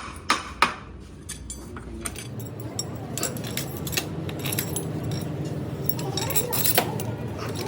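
Metal parts clinking and tapping against each other as they are handled, with a few sharper knocks near the start, over a low steady hum.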